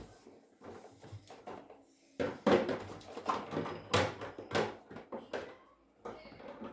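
Knocks, clatters and rustling of containers and bags being handled and set down while a freezer is repacked. The loudest knocks come about two and a half and four seconds in.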